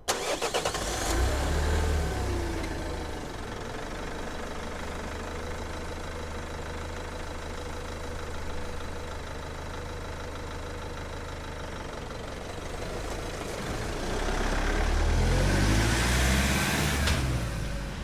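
Renault Master III van's diesel engine heard from outside: it starts up and briefly runs fast, settles to a steady idle, then is revved up and back down a few seconds before the end before returning toward idle.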